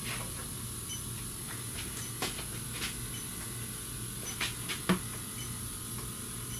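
Steady low hum and high hiss from an electronic refrigerant leak detector held at the AC hoses, with faint short ticks and several sharp clicks and taps of handling, the loudest just before five seconds.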